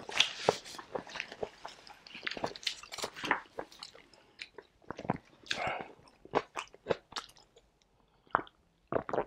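Close-miked chewing with the mouth closed: a run of wet clicks and smacks from a mouthful of food, with a noisier squishy stretch about halfway through. Near the end come a few louder gulps as he drinks from a plastic bottle of orange soda.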